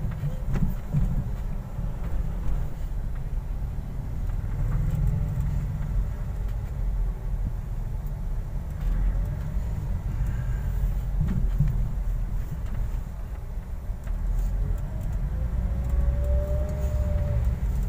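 Car cabin noise while driving slowly: a steady low rumble of the engine and tyres heard from inside the car.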